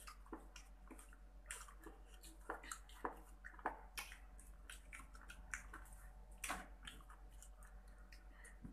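Close-up wet chewing and mouth clicks of someone eating fried chicken: a quiet, irregular scatter of small smacks and squelches, with a couple of louder ones partway through.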